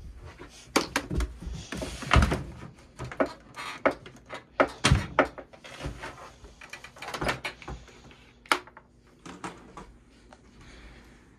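Irregular knocks, thumps and rustling from a phone being handled and things being bumped while moving about a small room. The loudest knocks come about two and five seconds in, with a sharp one near eight and a half seconds.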